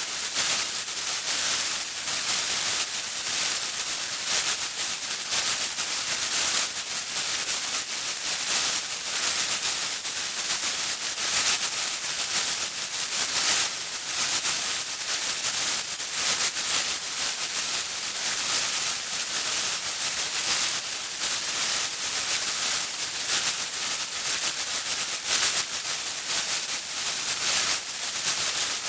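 Radio static interference: a steady hiss that crackles and flutters rapidly, with faint steady tones underneath.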